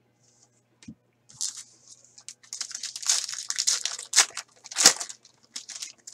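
Foil hockey-card pack wrapper being torn open and crinkled by hand: a run of crackling tears, the loudest about four and five seconds in. A soft thump comes just before, about a second in.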